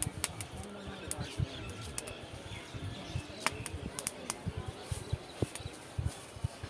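Corn cobs roasting over glowing charcoal in a clay brazier, with irregular sharp crackles and pops from the coals and cobs. Faint street chatter and bird chirps sit behind.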